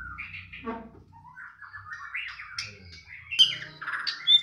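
White-rumped shama (murai batu) singing a varied song of whistles, chirps and quick trills, with the loudest, sharpest notes near the end.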